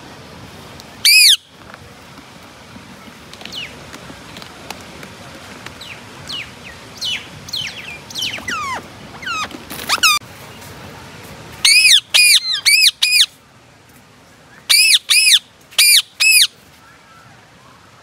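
Indian ringneck parakeets calling: one loud, harsh screech about a second in, a run of softer falling chirps, then two bursts of short, loud screeches in quick succession in the second half.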